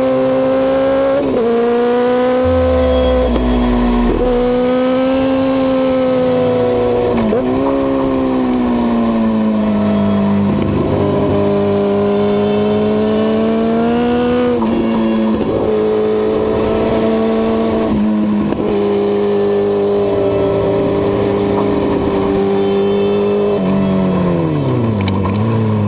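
Kawasaki ZX-10R inline-four sport bike engine pulling hard through the gears, heard from on the bike. The engine note dips sharply at each gear change and holds steady between shifts. Near the end it falls away steeply as the bike slows and downshifts.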